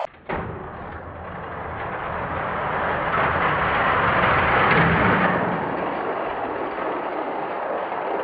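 Die-cast toy cars rolling down an orange plastic Hot Wheels track: a steady rolling rumble that swells for a couple of seconds mid-way and then eases off.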